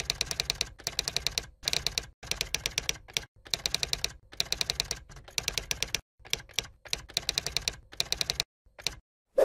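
Typewriter sound effect: runs of rapid key clacks, about a dozen a second, in short groups split by brief pauses, with one louder, lower knock at the very end.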